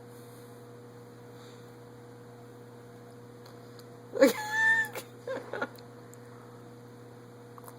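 A short, high-pitched vocal cry about four seconds in, followed by two or three brief shorter squeaks, over a steady low electrical hum.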